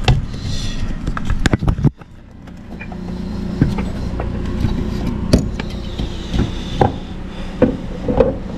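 Scattered clicks and knocks of a replacement alternator being handled and worked into a Daihatsu Tanto L350S engine bay, over a steady low hum. The sound cuts out for a moment about two seconds in and fades back up.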